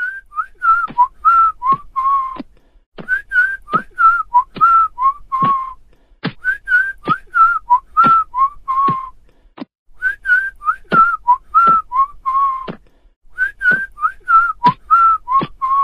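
A person whistling a short tune phrase, repeated five times with brief pauses between, each phrase sliding between notes and ending on a lower held note.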